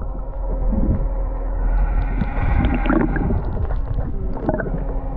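A boat's motor heard underwater as a steady low drone, with water gurgling and sloshing over it.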